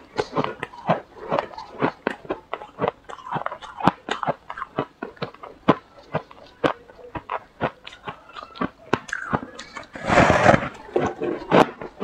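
Mouthful of powdery freezer frost being chewed, a dense run of sharp, crisp crunches with a louder, longer crunch about ten seconds in.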